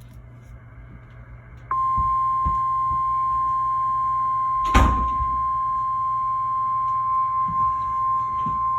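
NOAA Weather Radio warning alarm tone: a single steady 1050 Hz tone that starts abruptly about two seconds in and holds, heard over the radio's low hum. It signals that a warning message, here a severe thunderstorm warning, is about to be broadcast. A sharp pop cuts across it about halfway through.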